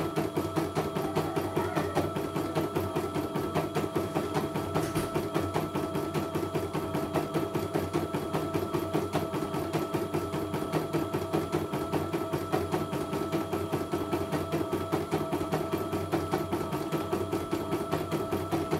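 CNY computerised embroidery machine stitching a design: the needle drives a rapid, even run of clicking strokes over a steady motor hum, the hoop moving under it.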